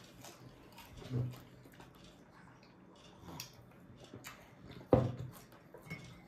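A short voice sound about a second in and a louder, sudden one with falling pitch about five seconds in, with a few small clicks and knocks between them, as at a meal table.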